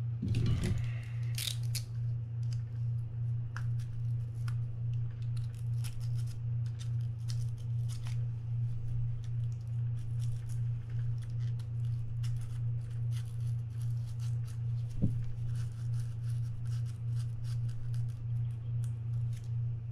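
A steady low machine hum pulsing in an even rhythm runs throughout. Over it come light scrapes and clicks from the corroded, salt-crusted drag washer being pried and picked at on a Shimano Tiagra 50W reel spool, with one sharper click about 15 seconds in.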